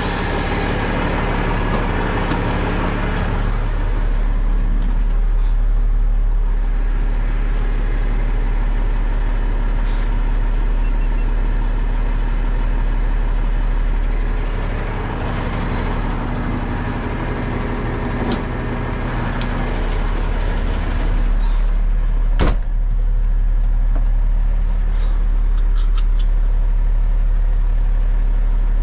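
Heavy wrecker's diesel engine idling steadily. A hiss of air at the start fades away over the first few seconds as the truck's air-operated drop axle lowers. A few short sharp clicks come through, the loudest a little past two-thirds of the way in.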